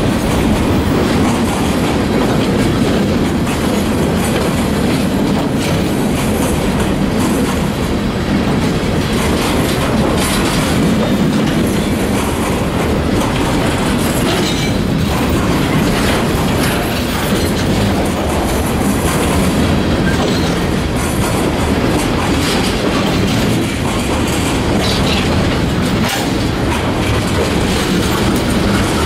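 Freight cars rolling past close by: empty bulkhead flatcars, then tank cars near the end. A steady rumble with the clickety-clack of wheels striking rail joints.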